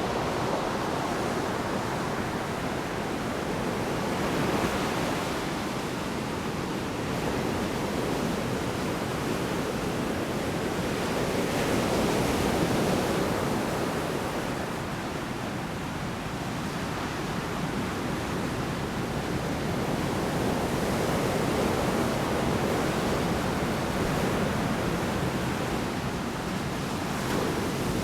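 Large storm waves breaking on a shore: a continuous rush of surf that swells and eases every several seconds as each wave comes in.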